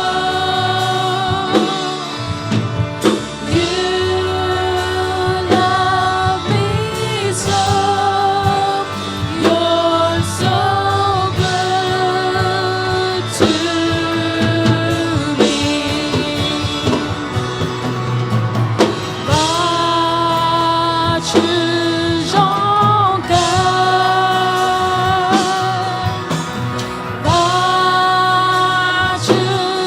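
Worship song: singing over a band with guitar and a steady beat.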